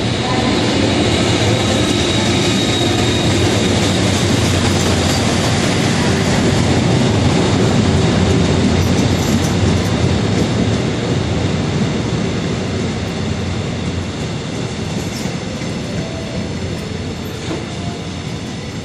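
Diesel-electric locomotive and Saemaeul-ho passenger coaches passing at speed: the locomotive's running noise, then the coaches' wheels rushing and clacking over the rails. It is loudest about eight seconds in and slowly fades.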